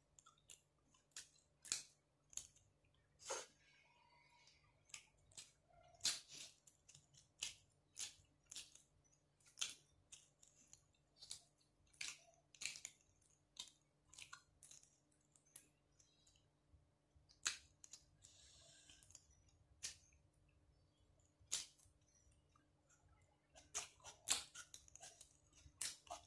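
Close-miked mouth sounds of a person eating: wet chewing smacks and lip clicks, about one or two a second, with a couple of short pauses.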